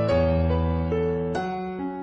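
Background music: soft electric piano playing sustained chords, a new chord struck at the start and another about halfway through.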